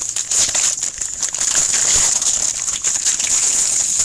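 Trading-card pack wrapper crinkling and crackling in rapid, irregular bursts as it is handled and opened.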